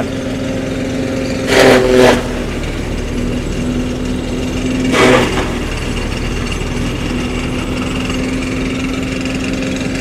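Tractor-driven chaff cutter running steadily, chopping maize stalks into silage fodder. The chopping gets louder about one and a half seconds in and again around five seconds, as bundles of stalks are fed in.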